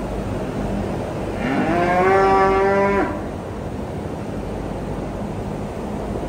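A cow mooing once: a single call of about a second and a half that rises in pitch at the start and then holds steady. A steady background hum runs underneath.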